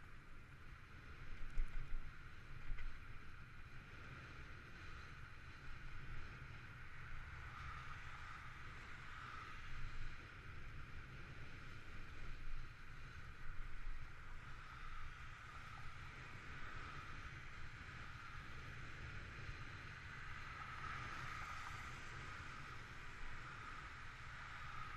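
Riding noise of an e-bike on wet pavement: wind rumbling on the microphone under a steady hiss, with a few louder bumps about two to three seconds in.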